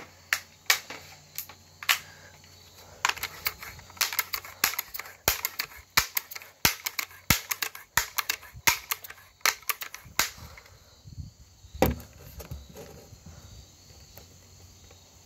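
Sharp clicks and clacks from handling a BB gun, several a second and irregular, then one louder crack about twelve seconds in.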